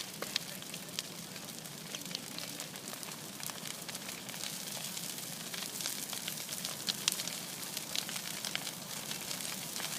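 A bonfire burning, crackling steadily with many small sharp pops, a few louder ones about seven seconds in.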